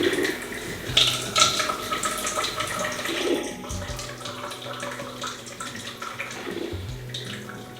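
Breville iced coffee maker running a plain-water rinse cycle: water gurgling and splashing as it runs through the machine into the tumbler.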